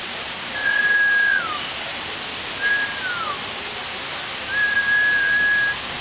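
Three long, clear whistled notes at the same pitch from a sunbittern and a person whistling with it. The first two slide down at the end; the third is held longer with a slight waver.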